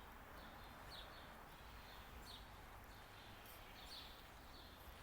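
Faint bird chirping: short high notes repeated about once a second over a low steady hiss of outdoor background noise.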